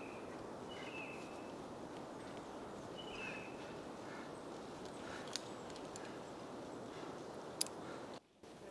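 Steady outdoor background hiss with two short high chirps in the first few seconds and two sharp clicks later on, the second the louder. The sound drops out briefly near the end.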